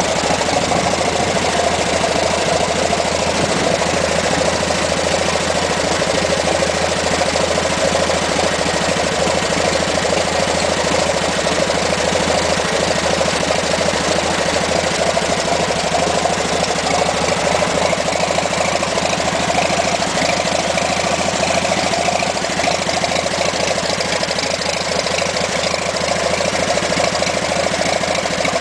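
An engine idling with a steady, unbroken drone.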